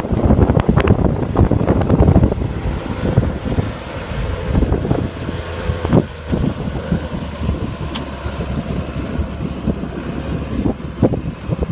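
John Deere 7930 tractor's six-cylinder diesel engine running steadily while pulling a plough.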